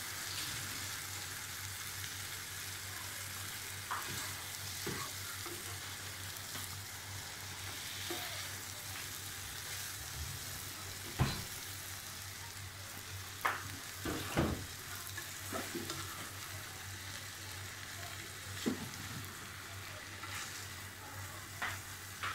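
Eggs, spinach and tomatoes sizzling in a non-stick frying pan as a spatula stirs them: a steady hiss with a few sharp knocks of the spatula against the pan, the loudest about halfway through.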